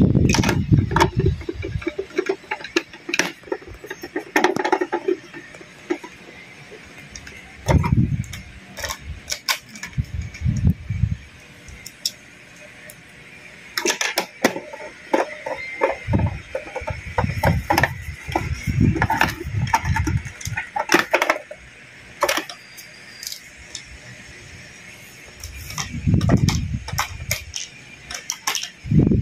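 Irregular clicks, taps and dull knocks of blender parts being handled and fitted back together, with a few heavier bumps spread through.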